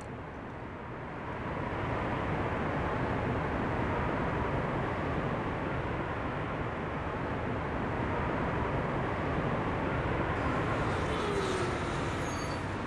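Steady rushing, rumbling noise that swells up over the first second or two, then holds, with a faint steady high tone through it and a short falling tone near the end.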